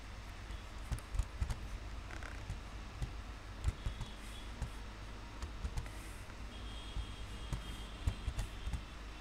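Typing on a computer keyboard with mouse clicks: irregular taps, a few sharper ones among them, over a steady low background hum.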